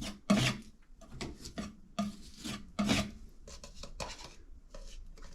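Hand-worked rasping strokes over a freshly patched drywall surface, about two a second: a blade or abrasive being scraped over patching compound to smooth it before paint. The strokes are strongest in the first three seconds and grow lighter after that.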